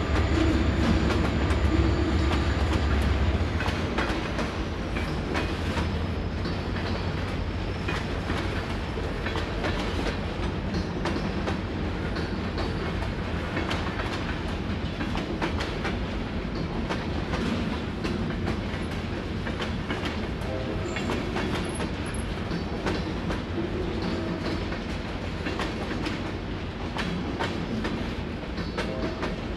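Long freight train of auto-rack cars and boxcars rolling slowly through a grade crossing. The wheels clack over the rail joints with a continuous rumble that is heavier for the first few seconds, then eases.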